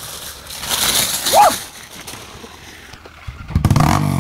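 Dirt bike engine running, loud from about three and a half seconds in. Before that there is a rushing hiss and a brief rising-and-falling cry a little over a second in.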